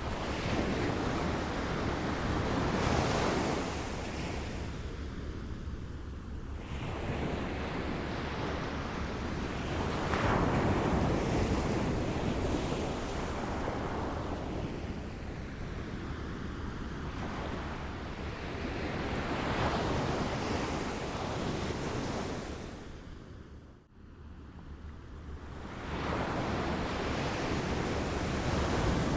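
Small waves lapping on a shore, the wash swelling and ebbing in slow surges several seconds apart. It almost drops out briefly about 24 seconds in, then the next wave rises.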